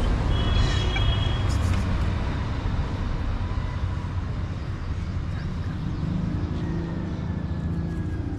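Steady low rumble of outdoor street noise, easing slightly after a few seconds, with a few brief high tones about half a second to a second and a half in.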